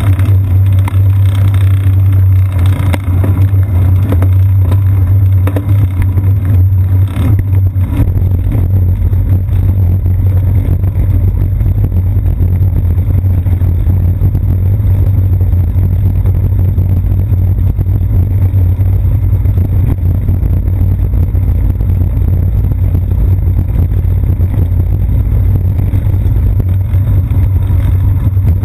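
Steady low rumble of road vibration and wind on a bicycle's seat-post-mounted GoPro Hero 2 in its housing while riding. It turns heavier and rougher about eight seconds in, with the tyres on a brick-paved street, and a couple of brief knocks come just before.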